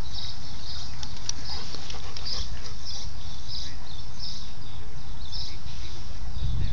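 A Rhodesian Ridgeback and a Newfoundland play-wrestling, with short breathy sounds like panting recurring every half second to a second. A steady low rumble lies under it all.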